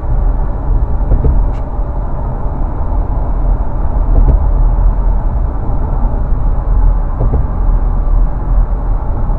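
Steady low road rumble and engine noise inside a moving car's cabin, heard while driving at road speed, with a few faint clicks.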